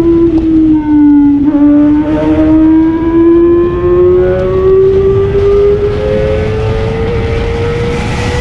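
Kawasaki ZX25R's 250 cc inline four-cylinder engine running at high revs. Its note dips slightly in the first second or so, then climbs steadily as the bike accelerates, over wind rush on the microphone.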